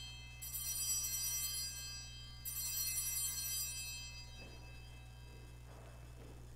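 Altar bells ringing at the elevation of the consecrated host. The tail of an earlier ring fades at the start, then the bells ring twice more about two seconds apart, each a bright metallic chime that dies away by about four seconds in.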